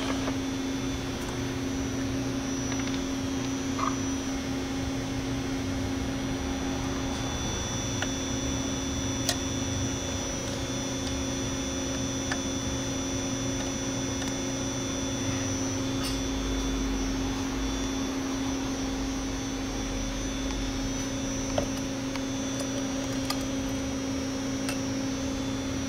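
A steady electrical hum with a faint hiss underneath, broken by a few light clicks.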